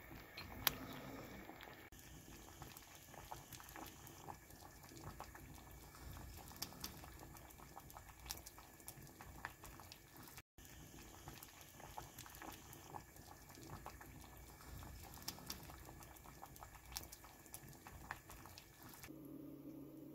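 Spicy seafood soft tofu stew (jjamppong sundubu jjigae) boiling in a pot, with a steady run of small bubbling pops, and one sharp tap about a second in.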